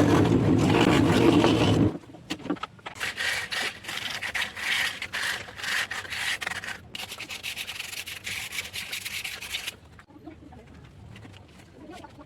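A power tool's motor runs steadily and cuts off about two seconds in. Then a small wooden piece is rubbed by hand in quick, uneven strokes, as in sanding, which fades out near the end.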